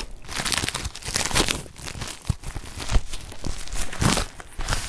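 Packaging crinkling and rustling in irregular bursts as a white mailer is pulled open and the paper bag inside is drawn out.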